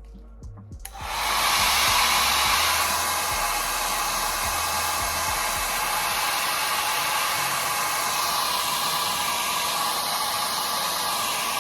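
Hair dryer switched on about a second in, then blowing steadily.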